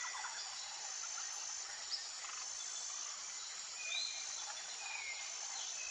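Outdoor nature ambience: a steady high-pitched insect drone with a few short bird chirps scattered through, the clearest about two-thirds of the way in.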